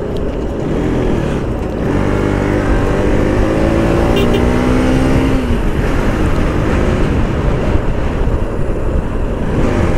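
Motorcycle running at road speed, with wind and road noise on the rider's microphone. An engine tone climbs steadily for a few seconds, then breaks off about halfway through.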